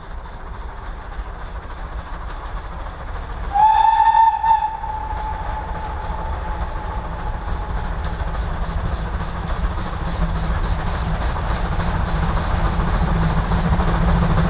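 A steam locomotive whistle blows one clear note, about three and a half seconds in, as a double-headed steam train of the 0-6-0 tank engines 813 and 7714 approaches. After it, the engines' exhaust beats and the rumble of the train grow steadily louder as it comes nearer.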